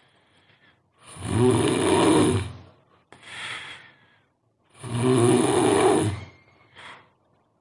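A sleeping person snoring very loudly: two long snores about three and a half seconds apart, each followed by a fainter breath out.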